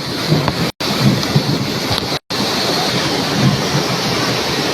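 Floodwater rushing across a paved road: a loud, steady rushing noise, cut by two brief dropouts about a second and two seconds in.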